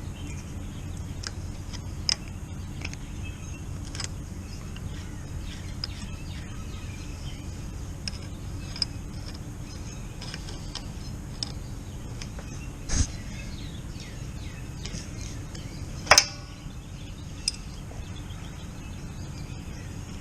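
Scattered metallic clicks and clinks of a 10 mm wrench working the gear-shifter adjuster on a BMW R 1250 RT, the loudest a short ringing clink about sixteen seconds in. Steady background noise runs underneath.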